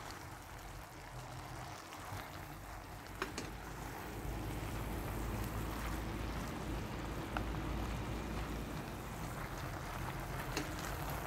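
Wind rumbling on the microphone, with a wooden spoon stirring beef and leafy greens in a pot and knocking sharply against it a few times.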